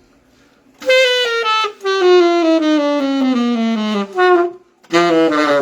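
Saxophone playing a descending chromatic scale in small, even steps. After a short break, a second, quicker descending run starts near the end.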